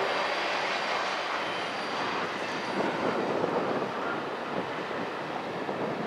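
Union Pacific double-stack container train rolling away on the track, the noise of its wheels and cars fading steadily as the end of the train recedes.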